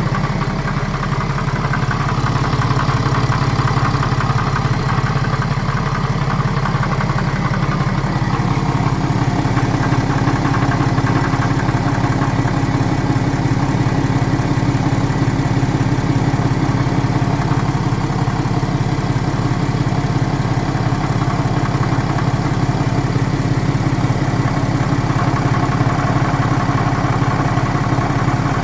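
BMW N57 3.0-litre straight-six diesel idling steadily with a knocking noise. The owner cannot trace it: crankshaft bearings, connecting-rod bearings, timing chain, belt tensioner and idler pulley are all new, and the knock comes only at idle, appearing and vanishing suddenly.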